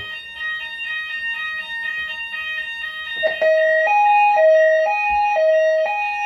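Fire alarm sounders on a Notifier/Hochiki ESP system going off as the system goes into alarm during a test. There is a quick pulsing multi-tone pattern with a constant high tone, and about three seconds in a louder two-note high–low alternation joins, about one cycle a second.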